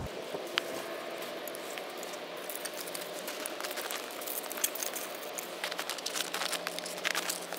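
Split kindling sticks clicking and clattering lightly against one another as they are leaned into a teepee over dry wood shavings, with a few sharp taps and a quicker cluster of clicks near the end.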